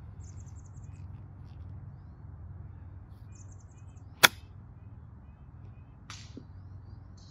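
A 58-degree wedge strikes a golf ball once in a short chip shot: a single sharp click a little past four seconds in.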